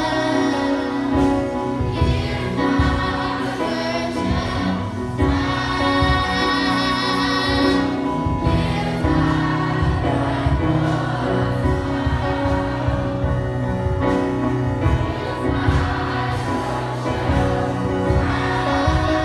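Choir singing a gospel song with accompaniment, many voices holding notes together over a steady low bass.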